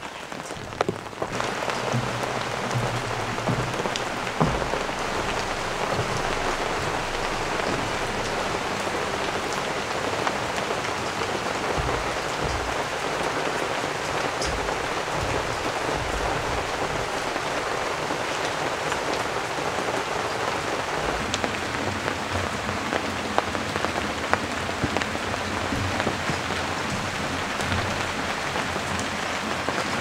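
Heavy monsoon rain pouring steadily, a dense even hiss, with a few soft low knocks showing through it.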